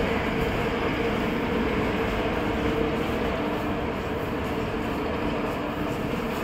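Bharat Gaurav tourist train of Indian Railways running on a track across the platform: a steady rumble with a low hum, getting a little quieter toward the end.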